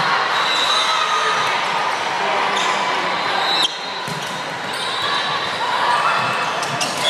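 Volleyball rally in a large, echoing gym: ball contacts and shoe squeaks on the hardwood over a steady din of voices in the hall. The din dips suddenly about three and a half seconds in, then builds back up.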